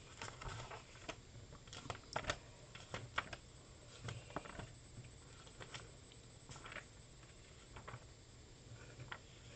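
Faint, irregular light clicks and taps of something being handled at a desk, about one or two a second.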